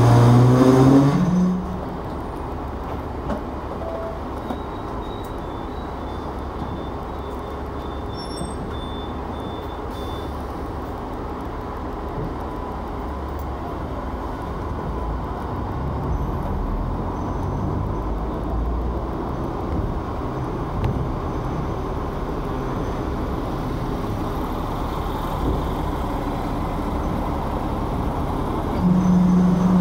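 Hong Kong double-decker electric tram running along its street tracks, heard from the upper deck: a steady rumble of wheels and motor with traffic around it. A louder low drone comes right at the start and again near the end.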